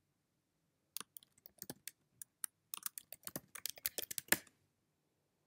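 Typing on a computer keyboard: an irregular run of quick keystrokes lasting about three and a half seconds, ending with one louder key press.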